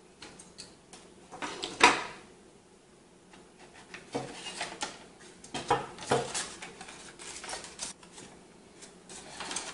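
Parts of a graphics-card cooler being handled on a wooden table: scattered clicks, knocks and light clatter of the plastic-framed heatsink, fan and card. The loudest is a sharp knock about two seconds in.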